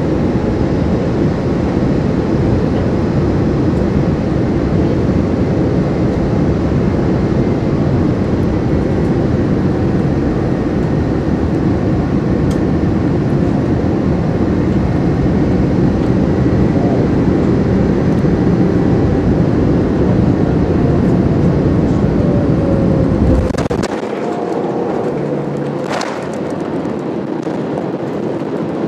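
Cabin noise of a Boeing 787-9 on final approach: a loud, steady rush of engine and airflow. About three-quarters of the way through, a sharp thump as the main wheels touch down, after which the deep rumble drops away. A second knock follows a couple of seconds later as the jet bumps on the runway in a bumpy landing.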